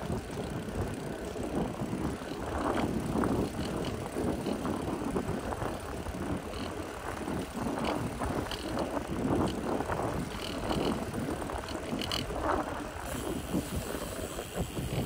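Brompton folding bicycle rolling along a paved road: steady tyre and road noise with occasional clicks from the bike.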